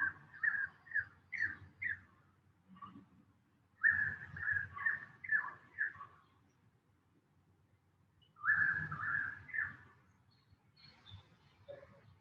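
Bird calling in three bouts of short, repeated notes. Each bout lasts about two seconds, the bouts come a few seconds apart, and fainter notes follow near the end.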